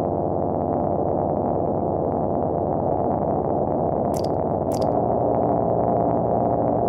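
Electronic drone score: a dense cluster of sustained low synthesizer tones at a steady level. Two short high-pitched blips come about half a second apart, a little after four seconds in.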